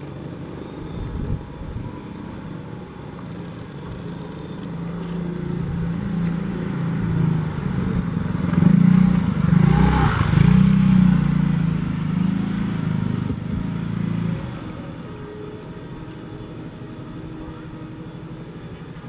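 A motor vehicle passing close by: its engine hum builds, is loudest about ten seconds in with a dip in pitch as it goes past, then falls away sharply a few seconds later.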